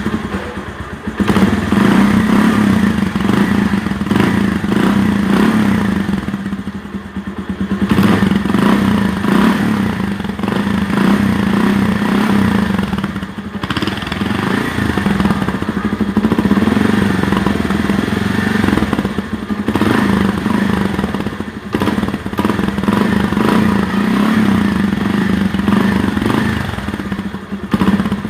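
Bajaj Pulsar 150's single-cylinder engine running through a KTM 200 exhaust, its note rising and falling every few seconds.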